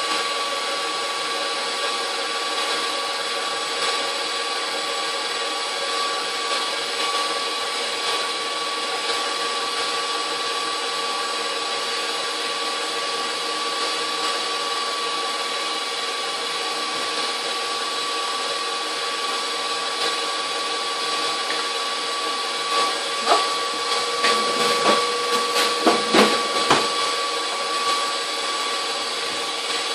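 KitchenAid bowl-lift stand mixer running steadily, its motor humming as the whisk whips egg whites. Several light knocks near the end.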